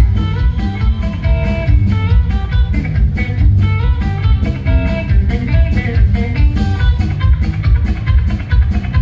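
Fender Telecaster electric guitar played live through a loud amplifier in fast chicken-pickin' style, quick runs of short clipped notes, over a steady rock drum beat.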